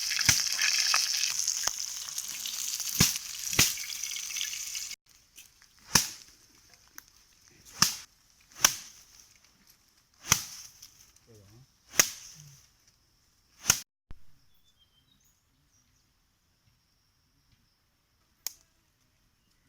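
Chicken leg pieces frying in oil on a hot stone slab, a dense sizzle with a few sharp pops, which cuts off abruptly about five seconds in. After that come several separate sharp pops or knocks a second or two apart, then near quiet.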